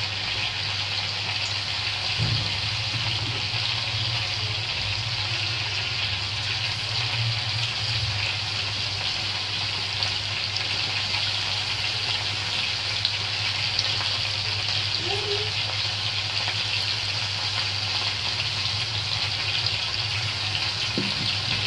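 Battered fish pieces deep-frying in hot oil in a pan: a steady, even sizzle, with a low steady hum underneath.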